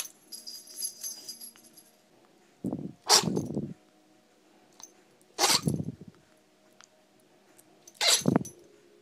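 A Chihuahua sneezing again and again: three sharp sneezes about two and a half seconds apart, part of a sneezing fit that went on for minutes.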